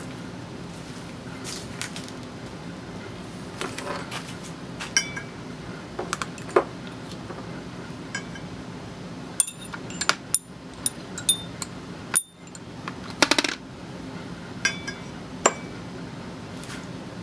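Small steel parts clinking against a steel brake rotor as they are handled and set into its bolt holes. Scattered sharp metallic clinks, some with a short ring, come thickest about halfway through, over a steady low hum.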